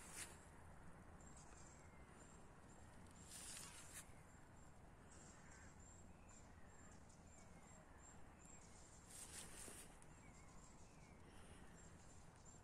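Near silence: faint outdoor evening ambience, with a row of faint high chirps and a few brief soft rustles.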